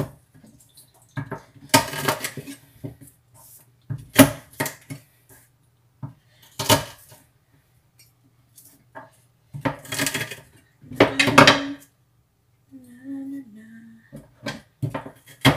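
Wide-bladed kitchen knife knocking on a wooden cutting board while garlic cloves are crushed under the blade and chopped, heard as a series of sharp knocks in irregular clusters.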